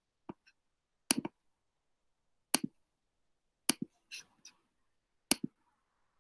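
Computer mouse clicks: about six separate sharp clicks roughly a second apart, several heard as a quick pair of press and release.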